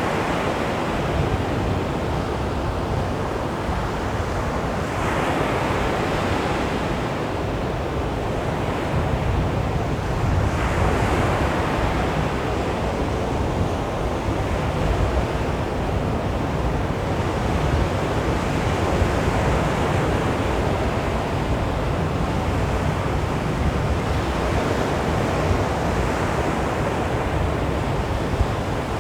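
Small sea waves breaking and washing onto a beach, a steady surf rush with surges as waves break, two of them clearer about five and ten seconds in.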